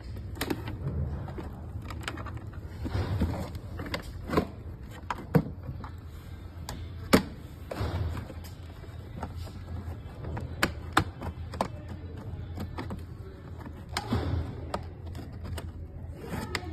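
Irregular sharp clicks and light taps of small tools and parts being handled during a repair, one or two a second, over a steady low hum.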